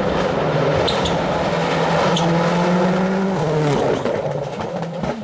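A World Rally Car's turbocharged 1.6-litre four-cylinder engine at high revs under load, with a few short cracks; from about three and a half seconds in the pitch steps down and back up through quick gear changes while the sound fades as the car moves away.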